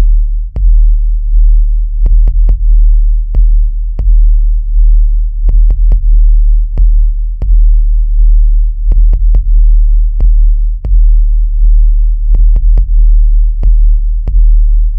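Industrial electronic music: a loud, steady, very deep bass tone under sharp clicks in an uneven, repeating rhythm, with quick triplets of clicks every few seconds.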